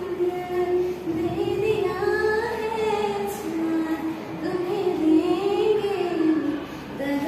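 A girl's solo voice singing a Hindi song with no accompaniment, drawing out long wavering notes, with a short break for breath near the end.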